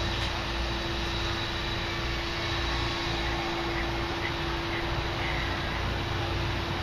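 Steady engine drone with a constant hum and a low rumble, unchanging throughout.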